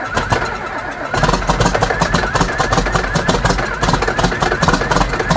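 Tractor diesel engine running rough just after a cold start, with a fast steady firing pulse. It grows louder and deeper about a second in, as if the throttle were raised.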